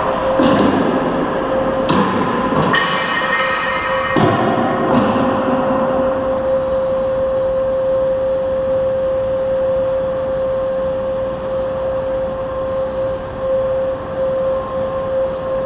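Shake table test rig and bridge specimen: about six loud bangs with metallic ringing over the first five seconds, then a steady machine hum holding one constant tone.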